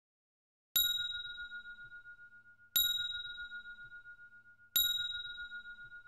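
Timer end alarm: a bell-like ding struck three times, about two seconds apart, each ringing out and fading, signalling that the countdown has reached zero.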